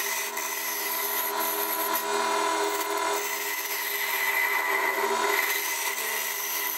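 A hand-held metal tool scraping a spinning wooden ball on a wood lathe: a continuous rough rasping over the lathe's steady motor hum.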